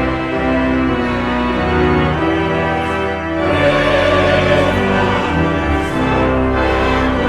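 Church organ playing sustained full chords that change every second or so, growing fuller and brighter about halfway through.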